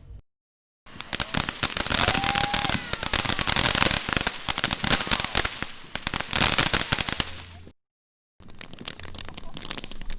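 Small store-bought sparkler fireworks of the shower-of-sparks kind, spraying with a dense, rapid crackle. It comes in two spells, each broken off by a sudden cut to silence, and the second spell near the end is quieter.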